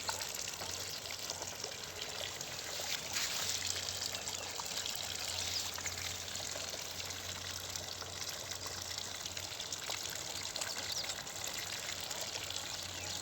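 Steady trickling and splashing of water, with many small ticks through it.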